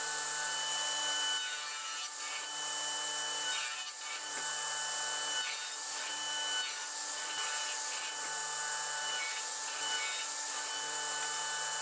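Radial arm saw running with a standard blade, cutting dados into MDF in repeated passes as the saw is drawn through the board. There is a steady motor whine and cutting hiss, with a lower note that comes and goes every second or so.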